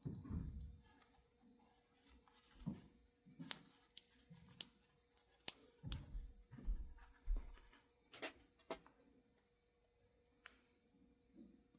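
Scattered small clicks and taps with a few low bumps, from hands and small tools working on an HO-scale model locomotive to take it apart.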